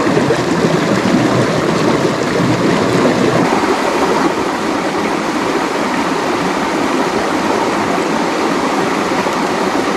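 Shallow rocky mountain stream rushing and splashing over stones, a steady loud rush of water.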